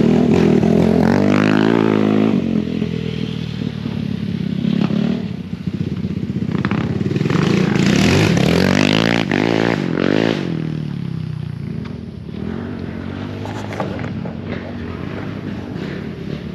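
Off-road vehicle engines revving, rising and falling in pitch, loudest near the start and again about eight to ten seconds in, then running lower and steadier.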